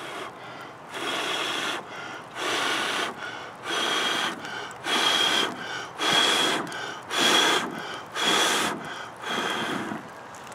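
A person blowing hard on campfire embers to bring them up into flame: eight long puffs about a second apart, with quick in-breaths between them.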